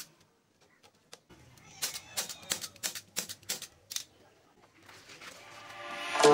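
A manual staple gun snaps once, fixing elastic webbing to a wooden sofa frame. From about two seconds in comes a quick, irregular run of sharp clicks and knocks of metal hand tools, and music fades in near the end.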